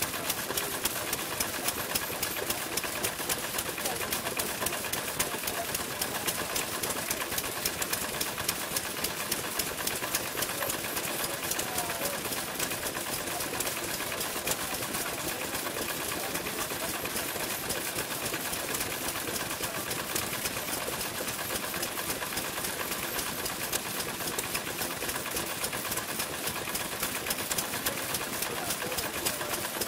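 Several vintage Japanese stationary kerosene engines (hatsudōki) running together, a steady fast clatter of firing strokes and valve ticks.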